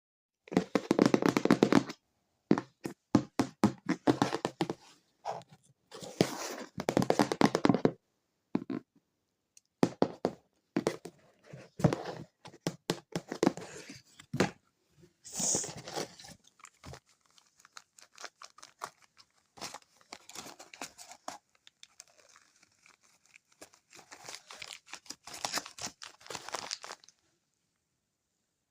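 A plastic toy refrigerator being handled: irregular rustling and crinkling mixed with clicks and knocks, coming in bursts with short gaps.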